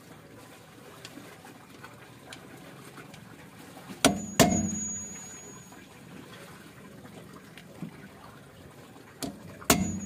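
Two pairs of sharp metallic hammer blows, about five seconds apart, on a screwdriver held against the axle nut of a new Honda Fit rear wheel hub, staking the nut's collar so it cannot loosen. Each blow rings briefly.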